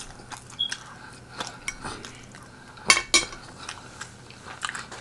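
Cutlery clinking against a plate with scattered short clicks, the loudest pair about three seconds in.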